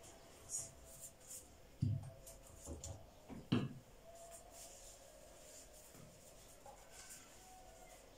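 Gullash (phyllo) pastry sheets being handled and pressed into a baking dish: soft rubbing and rustling, with two dull knocks about two and three and a half seconds in and a faint steady hum underneath.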